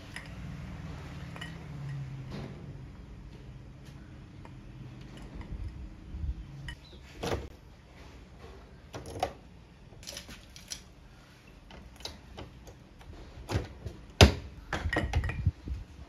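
Hands handling a capsule coffee machine and a glass of ice: a series of separate clicks and knocks as the machine's lever is lifted and closed and the glass is set down, the loudest knock about fourteen seconds in. A low hum in the first few seconds.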